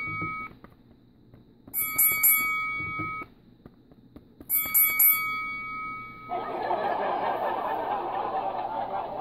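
An electronic chime sound effect, a few ringing tones with a bright jingle at the start, repeated identically every few seconds. After about six seconds it gives way to a steady, rough hissing noise.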